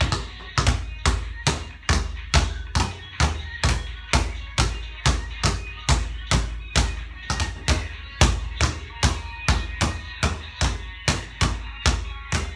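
Basketball dribbled hard and fast on a court in a ball-handling drill, a steady run of low bounces about three a second.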